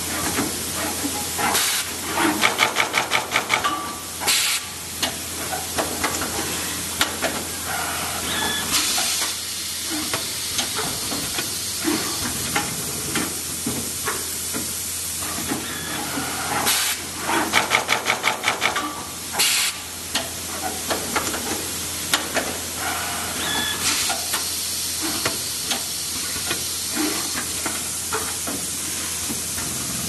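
Semi-automatic multicore cable connector housing inserting machine running through its cycle: a steady hiss with short louder bursts of hissing. Twice, about two seconds in and again about seventeen seconds in, it gives a fast run of clicking strokes lasting about two seconds.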